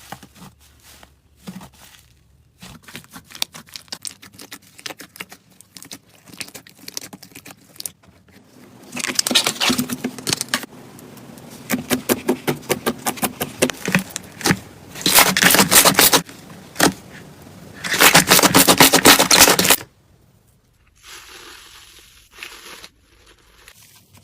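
Slime being squeezed and poked by hand, making quick crackling, popping clicks: scattered at first, then three loud, dense spells of crackling, with a quieter stretch near the end.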